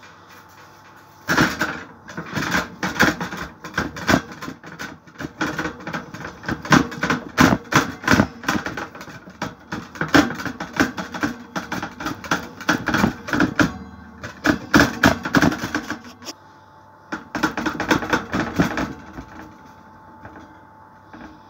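Hands patting and pressing bread dough out flat in an oiled metal baking tray: a fast, irregular run of pats and taps that starts about a second in, breaks off briefly about three-quarters through, then stops near the end.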